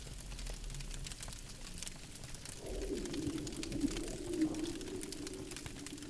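Campfire crackling with scattered small pops over a soft hiss. About two and a half seconds in, a low wavering tone joins it and runs on to the end.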